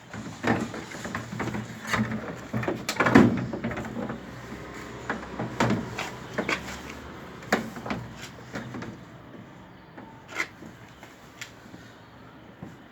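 Knocks and clunks of an LG washing machine's drum being set into the tub and worked into place, coming thick and fast for about the first seven seconds, then only now and then.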